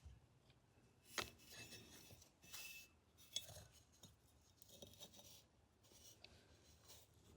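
Faint small metal clicks and scrapes of a hand tool working at the lever of a vintage .410 single-shot shotgun during disassembly, with sharper clicks about a second in and again about three and a half seconds in.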